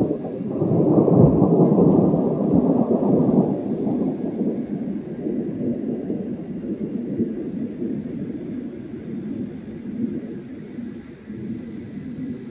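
Thunder: a sudden clap at the start that swells into a long, deep rumble over the next few seconds, then slowly dies away.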